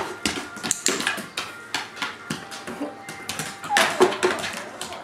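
Irregular clicks and taps from a border collie's claws and paws on a hardwood floor and a plastic tray stacked with books as she steps and fidgets on it.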